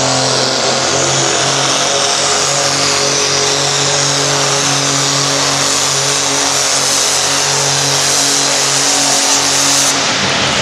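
Turbocharged diesel engine of a pulling garden tractor running hard at a steady pitch while it builds boost, with a strong high hiss over it. The hiss drops away near the end.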